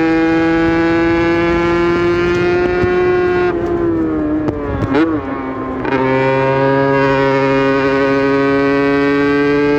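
Aprilia RS 125's single-cylinder two-stroke engine pulling under load, its pitch slowly rising. About three and a half seconds in the revs fall off, with a brief rev blip near the middle. From about six seconds it pulls steadily again at a lower pitch that creeps up.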